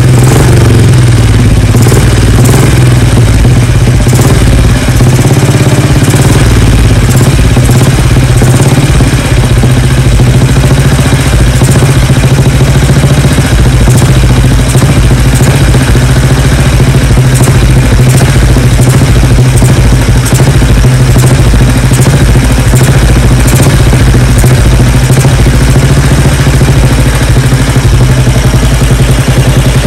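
1952 BSA B31's 350 cc single-cylinder four-stroke engine running at a steady, loud idle, freshly started after five years laid up.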